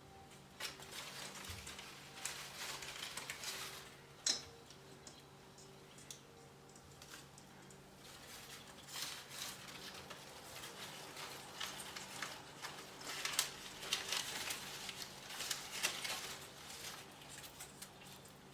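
Irregular rustling and light clicks from Christmas decorations being handled, with a sharp tap about four seconds in. A faint steady hum runs underneath.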